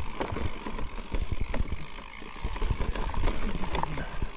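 Mountain e-bike moving over rough trail: wind buffeting the microphone in gusts, with irregular knocks and rattles from the bike.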